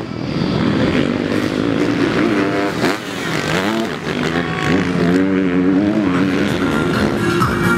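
Motocross bike engines revving on a dirt track, the pitch repeatedly rising and falling as the riders work the throttle.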